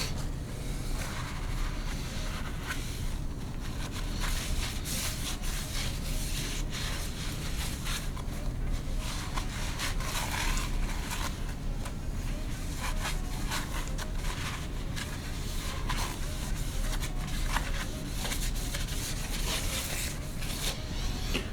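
Irregular scraping, clinking and rubbing of metal parts from a Mazda 13B rotary engine being handled and pulled apart, over a steady low hum.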